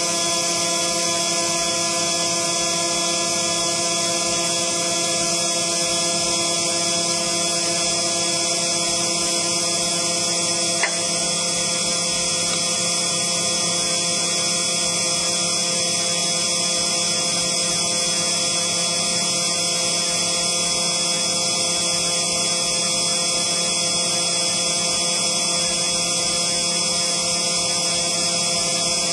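CNC engraving machine running steadily: a constant high whine made of several steady tones, with one short click about eleven seconds in.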